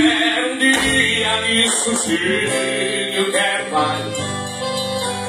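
A song with singing played loud through a car sound system: an Eros Target Bass 3K 18-inch subwoofer and Eros 8-inch mid-bass speakers in an open hatchback trunk.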